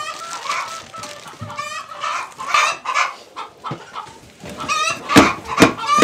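Domestic hens clucking, several calls overlapping, with two loud sharp sounds about half a second apart near the end.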